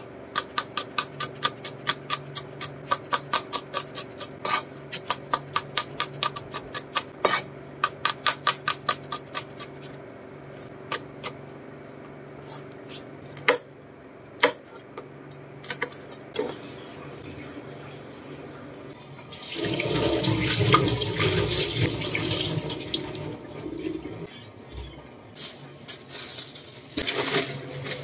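Kitchen knife chopping garlic and chillies on a cutting board: a quick even run of knocks, about three or four a second, for the first ten seconds, then a few scattered cuts. About two-thirds of the way through, a kitchen tap runs into the sink for several seconds, and it starts again near the end.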